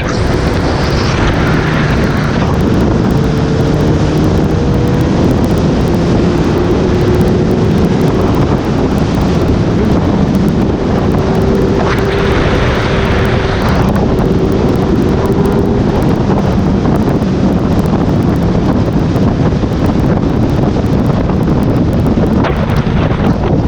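Heavy wind noise buffeting the camera's microphone on a moving Honda CB1000R. Underneath runs the bike's inline-four engine, its tone drifting slightly with the revs. Stronger gusts come now and then.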